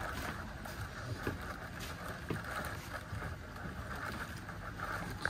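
Steady engine rumble and rushing wind of a boat under way, which cuts off suddenly at the end.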